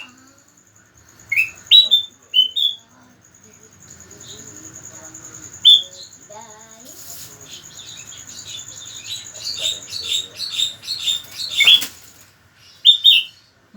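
Bulbul (kutilang) singing: short rising whistled notes in quick groups of two or three, then a faster run of notes near the end.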